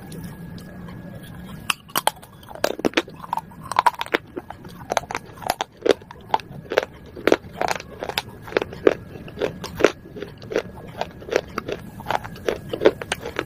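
Biting and chewing broken pieces of fired clay pot close to the microphone: a run of sharp, brittle crunches about two a second, starting about two seconds in.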